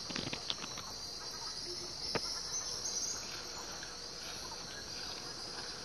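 A steady high-pitched chorus of insects chirring, with a few faint clicks and taps, the sharpest about two seconds in.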